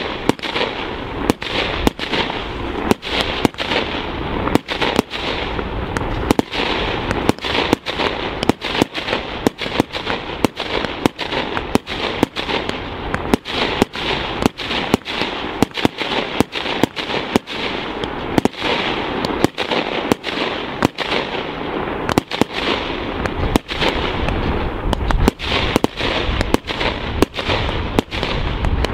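Fireworks display: a rapid, irregular run of aerial shell bursts, sharp bangs about two a second, over a continuous rushing noise that never lets up.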